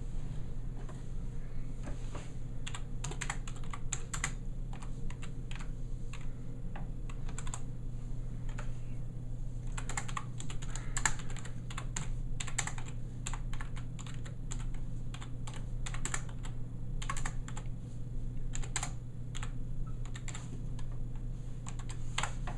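Typing on a computer keyboard: quick, irregular runs of key clicks with short pauses between, over a steady low hum.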